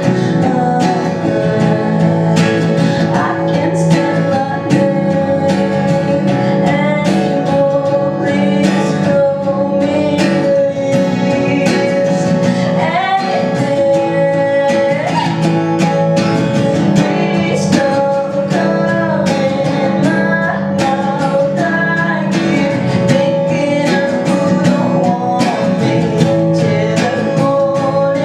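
Background song with plucked guitar and a singing voice, and a steady strummed rhythm.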